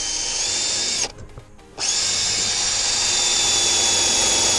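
Cordless drill drilling a hole, with a steady high whine. It runs for about a second, stops briefly, then runs again steadily.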